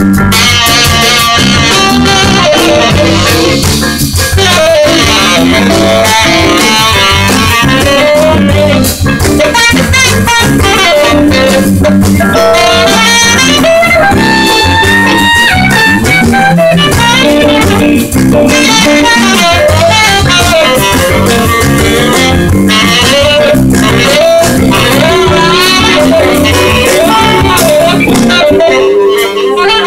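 Live jazz band playing an instrumental number: wavering melody lines over steady bass and drums, loud throughout.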